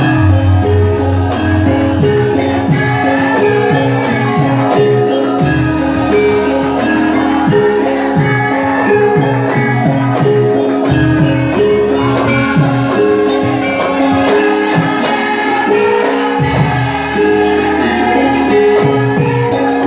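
Music playing: a sustained bass note that shifts every few seconds under steady percussion and held melodic tones.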